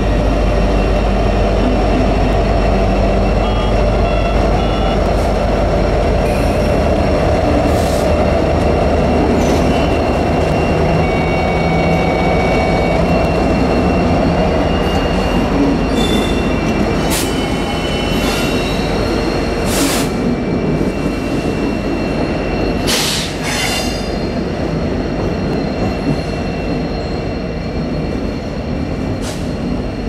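Freight train passing close by, hauled by Norfolk Southern diesel locomotives: a steady, loud engine rumble with rolling wheel noise throughout. Several short, sharp wheel screeches cut in through the middle and later part, the loudest about two-thirds of the way through.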